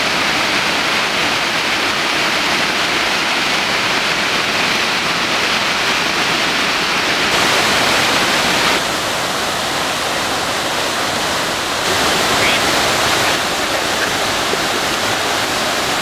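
Harvalem waterfall in monsoon flood: a loud, steady rush of heavy falling water. The tone and level shift suddenly a few times.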